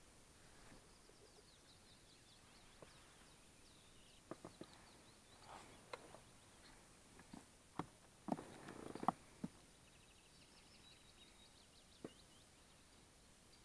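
Faint songbird chirps and trills on a quiet morning lake. A handful of sharp knocks and short rustles come in the middle, the loudest about eight to nine seconds in.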